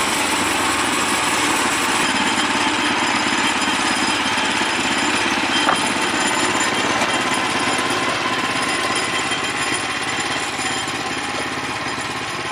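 Woodland portable band sawmill running steadily, its engine driving the band blade through a log.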